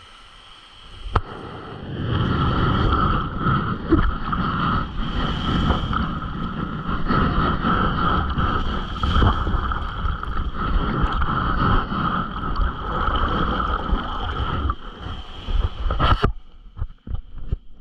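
Water rushing and churning around a GoPro camera in the surf, heavy and muffled, starting about two seconds in and cutting off abruptly near the end.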